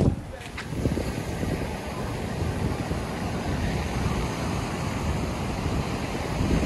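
Strong wind buffeting the microphone, a steady low rumble with surf breaking behind it. A brief loud thump comes right at the start.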